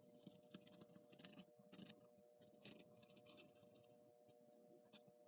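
A blade cutting foam board by hand: a run of faint, short scratchy strokes.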